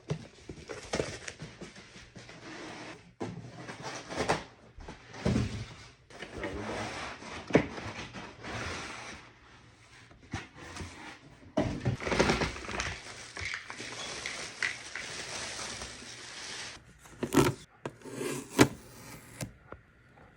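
Handling noises: irregular knocks, clicks and scrapes with stretches of rustling, as of objects and packaging being moved about, with a few sharper knocks near the end.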